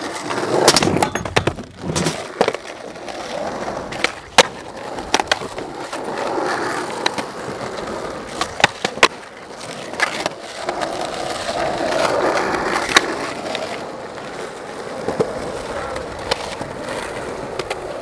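Skateboard wheels rolling on asphalt, broken by repeated sharp clacks of the board popping, hitting the curb and landing.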